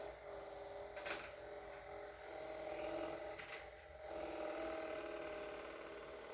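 Handheld percussion massage gun running with a steady motor hum whose pitch shifts slightly as it is pressed into the back and thigh muscles. Two short ticks come about a second in and again past the middle.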